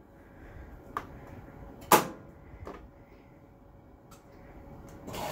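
Sharp clicks from a front-loading washing machine's control dial and buttons as the cycle is started. The loudest click comes about two seconds in, with lighter ones about a second in and near three seconds. Near the end a steady hiss of water begins as the washer starts to fill.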